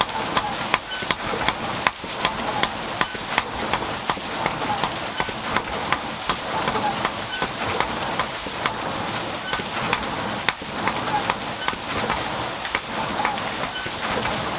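Small hammer tapping a red-hot iron rod on a stone anvil, sharp strikes about two to three a second, over a steady rushing hiss. A faint short squeak repeats roughly once a second.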